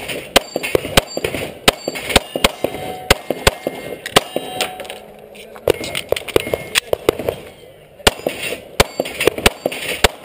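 Glock 19 Gen 4 pistol firing 9mm shots in quick strings, with steel target plates ringing where they are hit. The shooting stops for about a second a little before halfway, then resumes.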